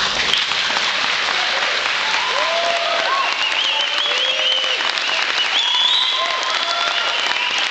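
Large crowd applauding and cheering, steady clapping with many voices whooping and yelling over it; it starts abruptly.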